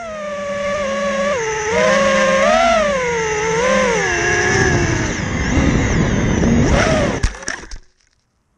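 Armattan Mongoose FPV quadcopter's brushless motors and propellers whining, the pitch rising and falling with the throttle. About seven seconds in, a few sharp knocks as the quad hits the ground in a failed landing, and the motors cut off abruptly.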